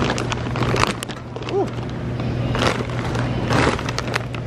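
Warehouse store background noise with a steady low hum, scattered clicks and two brief rustles of packages being handled while items are scanned.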